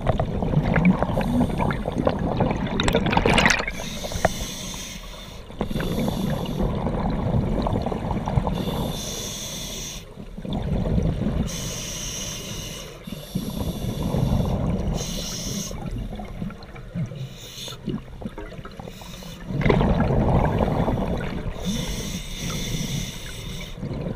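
Scuba diver breathing through a demand regulator underwater. Short hissing inhalations alternate with longer rumbling, bubbling exhalations, about five breaths in all at a slow, even pace.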